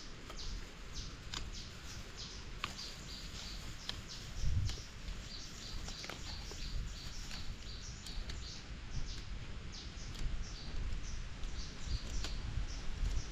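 Small birds chirping in quick, repeated short notes, over low rumbling noise, with a single dull thump about four and a half seconds in.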